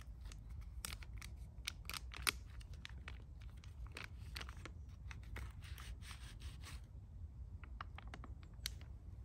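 Food ration pouches being handled and torn open by hand: plastic and foil wrappers crinkling and tearing in a dense run of sharp crackles that thins out to a few near the end.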